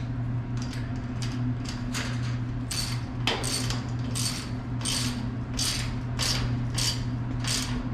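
Ratchet wrench tightening the bolt on a new chain-link fence gate latch, clicking in short repeated strokes about one and a half times a second, faint at first and stronger from about three seconds in, over a steady low hum.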